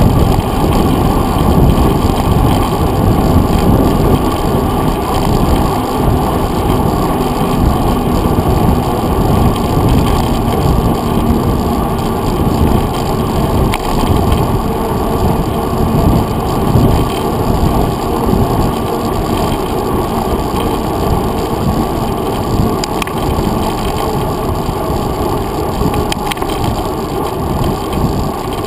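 Mountain bike rolling along a paved trail: steady, muffled wind and tyre-and-road rumble picked up by a handlebar-mounted action camera, with a few faint rattling clicks.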